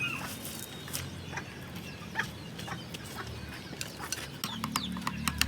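Chickens clucking, mixed with scattered sharp clicks and taps.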